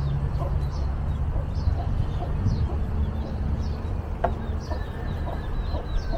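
Birds calling in short, repeated chirps over a steady low rumble.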